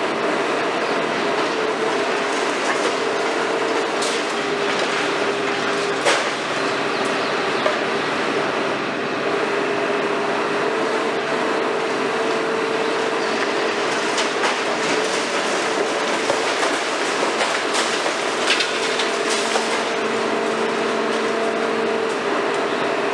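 KMC 400 long-reach demolition excavator, built on a Hitachi 350, running steadily with a constant hydraulic whine while its boom-top attachment works the concrete of the upper floors. Sharp cracks of breaking concrete and debris come through several times, once about six seconds in and a cluster in the second half.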